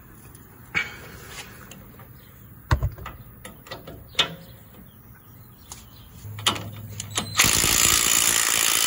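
A few metallic clinks and knocks of hand tools, then near the end a cordless impact wrench spins up and hammers steadily on a tight lower shock bolt.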